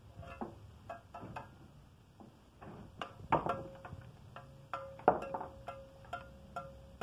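Mason's steel trowel tapping on the bricks and mortar of a brick vault: a run of sharp, ringing taps, the loudest about three and five seconds in.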